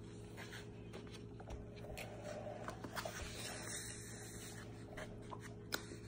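Chewing a mouthful of cornstarch, with scattered soft clicks and crunches, and scraping as fingers rub through loose cornstarch in a foam tray.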